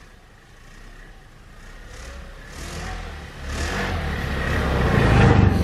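Snowmobile engine running and speeding up, getting steadily louder until it is loud near the end.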